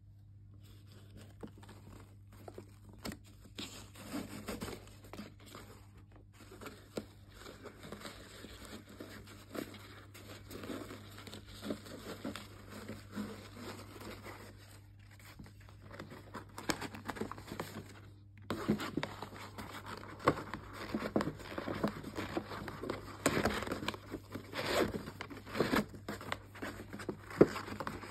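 Hands handling a cardboard gift box and its fabric ribbon: irregular rustling, scraping and soft taps as the ribbon is untied and slid off and the lid is worked open. The handling gets louder and busier about two-thirds of the way in, over a faint low hum.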